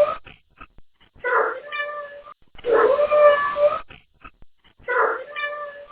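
Domestic cat meowing: the end of one call, then three drawn-out, word-like meows of about a second each. The owner hears them as the cat saying 'turn around'.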